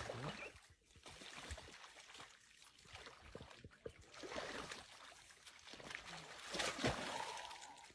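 Shallow muddy water splashing and sloshing in uneven bursts as a young lion wades through a waterhole, loudest a little before the end.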